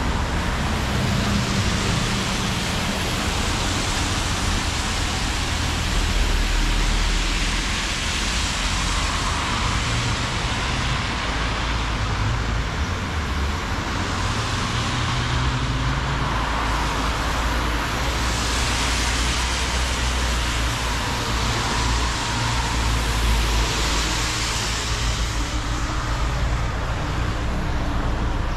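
Road traffic on wet asphalt: several cars pass one after another, their tyres hissing on the wet road over a steady low rumble of engines.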